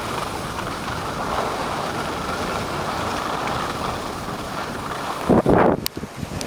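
Steady rushing of wind on the microphone mixed with skis hissing over packed snow during a downhill run. About five and a half seconds in comes a louder burst of noise, ending in a sharp click.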